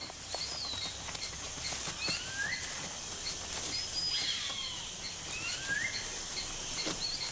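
Tropical forest ambience: short rising whistled bird calls repeat about every three seconds over a steady high insect hiss and a regular row of soft high pips.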